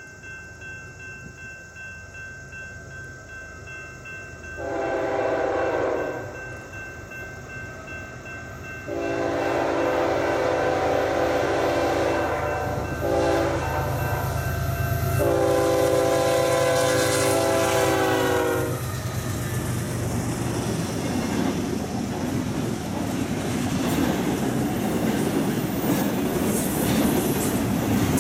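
BNSF freight locomotive's horn sounding four blasts, long, long, short, long (the first somewhat shorter), the grade-crossing signal, over a growing diesel rumble as the train approaches. From about two-thirds of the way through, the double-stack intermodal cars roll past with steady wheel noise and rail clatter.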